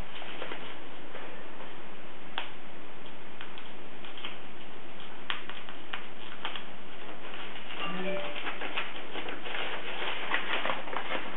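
Laptop packaging being handled and opened. Scattered sharp clicks and taps come first, then a dense crackling rustle of wrapping over the last few seconds, with a brief pitched sound just before it starts.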